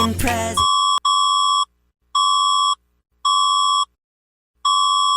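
Repeating electronic alert beeps of a mock emergency-broadcast alert: a buzzy, high, steady beep sounding about five times, each about half a second long with equal gaps. The tail of an electronic music sting cuts off just before the first beep.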